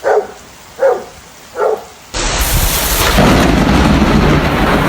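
A dog gives three short barks about a second apart. Then there is an abrupt cut to loud, steady pouring rain with a low thunder rumble.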